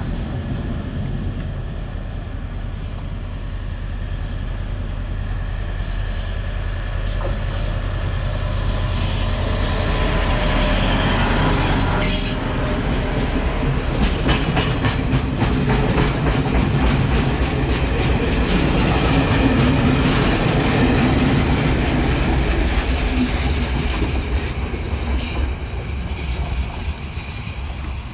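Diesel train passing close by: a steady engine drone that grows to its loudest in the middle of the pass and eases off towards the end, with the wheels clicking rapidly over the rail joints as the carriages go by.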